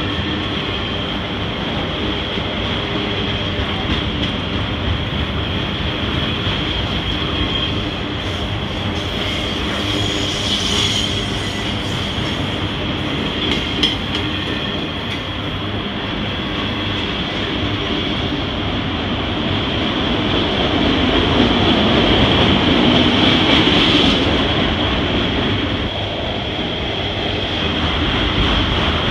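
Freight train of autorack cars rolling past close by: a steady rumble and clatter of steel wheels on rail, with a high squeal held throughout. The squeal grows louder about 22 seconds in.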